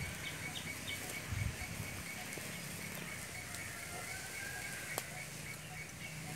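Outdoor ambience by an open wood fire under a grill: a steady hiss with one sharp crackle about five seconds in, and birds chirping with a short call repeated over and over.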